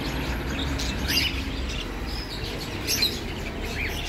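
Caged budgerigars chirping: short, scattered chirps with quick rises and falls in pitch.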